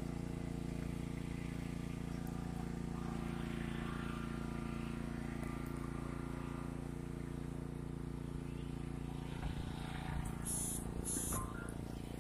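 An engine running steadily at a constant speed, with faint voices over it. Near the end come two short, high hisses about half a second apart.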